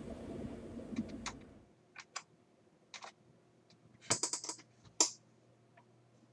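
A low rumble fading out over the first second and a half, then scattered sharp clicks and taps, with a quick run of clicks about four seconds in and the loudest single click about a second later.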